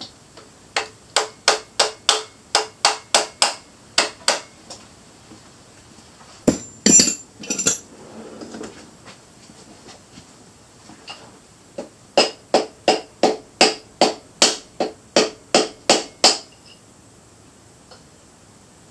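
Hammer tapping on metal of an engine's bottom end, about three light blows a second in two runs of a dozen or so, with a louder metallic clatter in between: typical of knocking a connecting-rod cap loose during a teardown.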